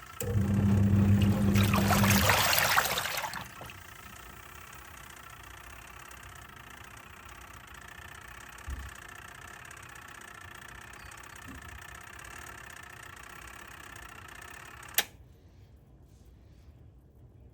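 Twin-tub washing machine running: a loud motor hum with a rushing, churning noise for about three seconds, then a softer steady running sound. A sharp click comes near the end, and after it the sound drops to a faint background.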